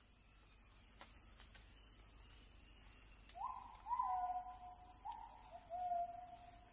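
A bird calling a short series of about four clear whistled notes, each stepping a little lower in pitch, over a steady high-pitched drone of insects.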